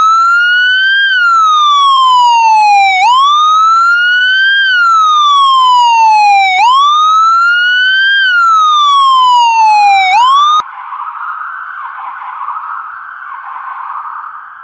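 Police siren wailing: each cycle rises quickly and falls slowly, repeating about every three and a half seconds. It cuts off suddenly about ten and a half seconds in, leaving a fainter, rough noise around the same pitch.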